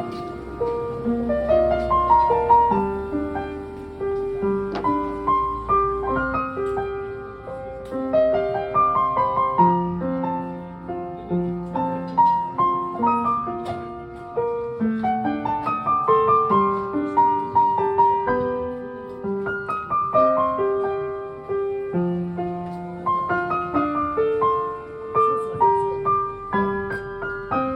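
Piano being played: a continuous melody of struck notes over lower chords, at a steady tempo.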